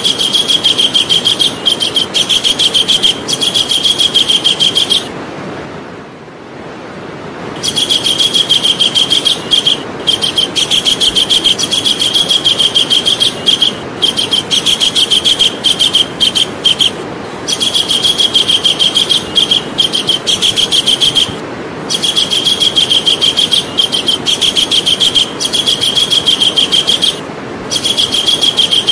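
Javan kingfisher calling: a fast series of high, sharp notes delivered in runs of a few seconds, broken by short pauses and one longer pause about five seconds in. A steady hiss runs underneath.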